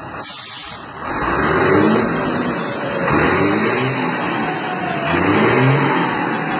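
Mercedes-Benz 1721 truck's OM 366 turbo-diesel revved three times while standing still, its BorgWarner turbo fitted with a 'pente' whistle insert singing, a high whistle that slowly falls away near the end. A short hiss comes just after the start.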